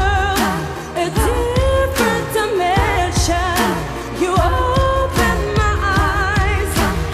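A pop song: a singing voice with wavering vibrato over a beat, with repeated sliding-down bass notes.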